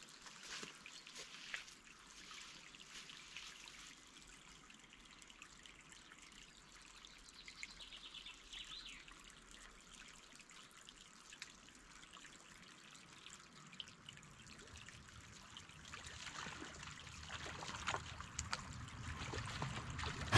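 Faint trickling, lapping water with soft ticks. It grows louder near the end as a hooked trout splashes at the surface.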